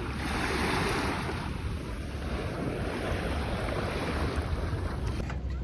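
Sea waves washing onto a beach, swelling and easing, with wind rumbling on the microphone. The sound changes abruptly just before the end.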